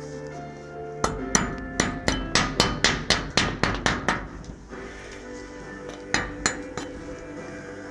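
Chipping hammer knocking slag off a freshly laid stick-electrode weld bead on steel plate. It strikes in a quick run of about fifteen sharp metallic taps, four or five a second, then after a short pause gives a few more taps.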